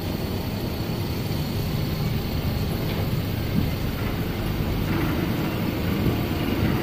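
Engines running with a steady low rumble aboard a roll-on/roll-off car ferry that has docked, before the vehicles start driving off.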